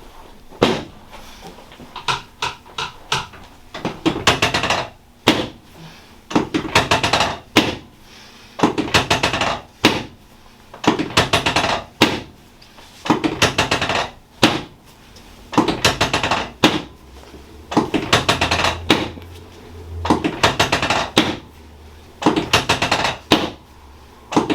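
Rapid percussive tapping on a patient's body, as in percussive massage, in short bursts of about a second each, repeated every second or two.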